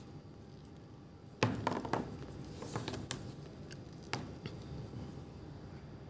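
Handling noise from a leather belt with a metal automatic ratchet buckle: a sharp click about a second and a half in, a short run of clicks and rustling, then one more click past the middle.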